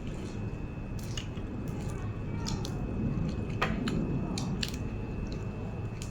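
A person chewing and eating, with scattered soft mouth and utensil clicks and one sharper click about three and a half seconds in.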